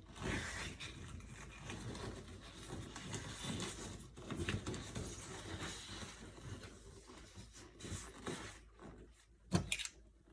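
Latex balloons rubbing against each other as they are pushed one by one into the neck of a large clear balloon, an uneven run of rubbing and scraping, with one sharp snap near the end.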